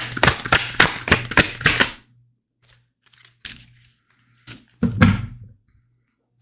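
Tarot cards being shuffled by hand, a quick even run of card slaps at about four a second that stops after about two seconds. A few separate card taps follow, then a heavier thump near the end.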